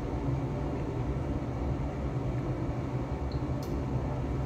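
Steady low hum of room air handling, with a faint short tick about three and a half seconds in.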